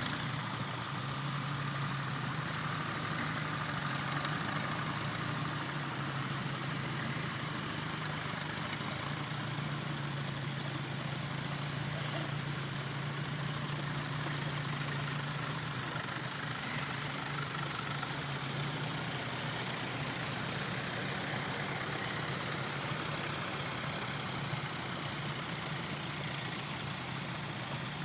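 Standard Fordson tractor's four-cylinder side-valve engine running steadily while pulling a plough, its low drone a little fainter in the last third.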